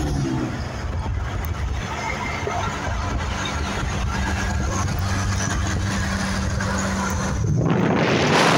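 Road noise and a steady engine hum from cars driving at highway speed. About seven and a half seconds in, a sudden louder, rough rushing noise takes over as a white Rastrojero draws alongside.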